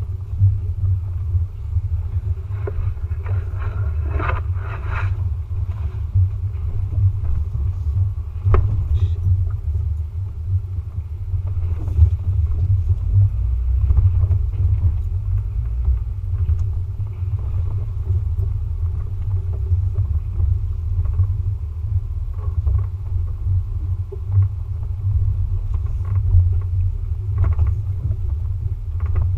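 Low, steady rumble of an off-road vehicle crawling along a rough, muddy trail, picked up by a camera mounted on its hood, with a few short knocks and rattles as it goes over bumps.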